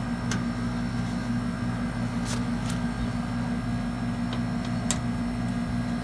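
Outdoor unit of an R-22 split air conditioner running with a steady hum, and a few faint clicks as a gloved hand screws the gauge manifold's charging hose fitting onto the service port.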